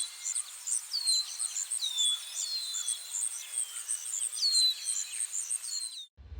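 Birds singing, with repeated high whistles that slur downward, over a steady, very high chirping a few times a second.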